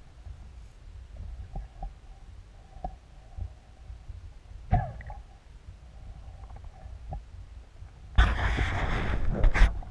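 Underwater sound picked up by a submerged camera: a steady low rumble of water movement with scattered faint clicks, and a sharp click a little before halfway. From about eight seconds in, a loud rushing noise lasts about a second and a half, with a few sharp spikes near its end.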